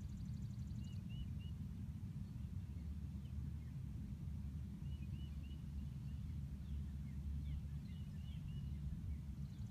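Wind rumbling on the microphone, with small birds chirping in short runs of a few notes and a high, rapid trill that stops about a second in.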